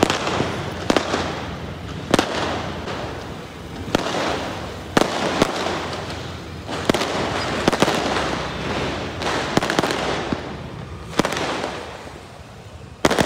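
Aerial fireworks bursting overhead: a string of sharp bangs, roughly one every second or two, over a continuous din of crackling.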